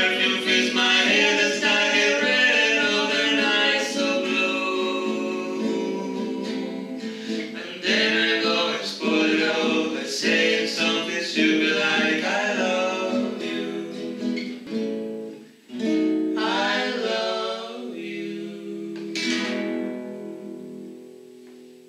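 Acoustic guitar accompanying a man's singing voice. The music ends on a final chord that rings on and fades out near the end.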